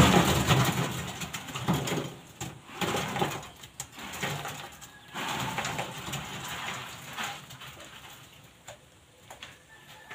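Wet concrete mix of cement, sand and crushed gravel being tipped out of a plastic basin into a reinforced sink form, sliding and splatting down onto the rebar and form boards. Loudest as the pour begins, then tapering off.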